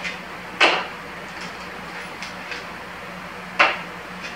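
Two sharp clunks about three seconds apart, with lighter clicks between, as a balance bike's rear wheel, its axle nuts loosened, is worked out of the frame's dropouts.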